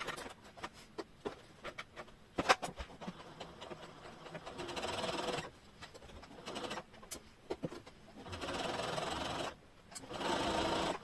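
Brother Innov-is electronic sewing machine stitching a seam in straight stitch, in three short runs of about a second each in the second half. Sharp clicks from handling at the machine come first and also fall between the runs.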